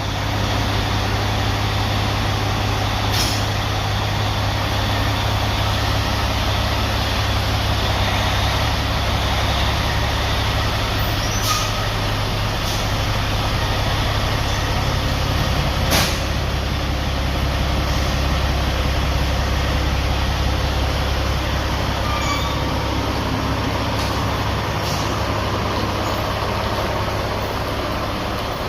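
Truck engine running steadily with a constant low rumble, a few faint clicks over it, and one sharper knock a little past halfway.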